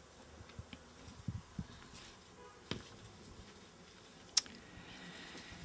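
Quiet desk-handling sounds: a case being moved and paper sheets being handled, with scattered small knocks and one sharp click about four seconds in.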